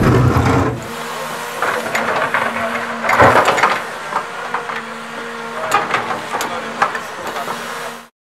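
Diesel engine of a CAT tracked hydraulic excavator running loudly under load as its bucket digs into a gravel road. After about a second it falls back to a steady hum, while gravel and stones crunch and clatter under the bucket, with a louder scraping crunch about three seconds in. The sound cuts off suddenly near the end.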